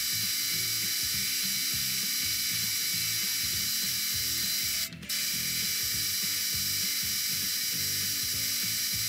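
Metal lathe running under power feed, a steady gear whine over a rhythmic low clatter, as a knurling tool rolls a knurl into a brass bar. The sound breaks off briefly about five seconds in.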